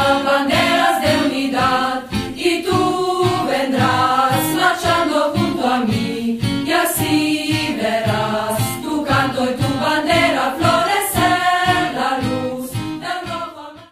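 Choir singing a marching song over a steady beat, fading out at the very end.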